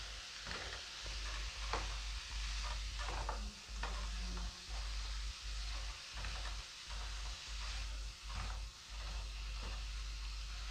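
Soft, irregular scraping strokes of a paintbrush spreading paint on a plastered wall, over a steady faint hiss.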